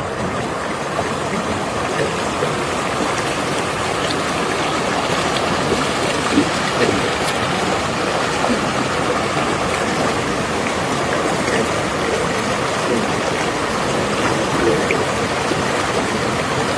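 Steady rush of running water, as of a stream flowing, with small splashes and drips scattered through it.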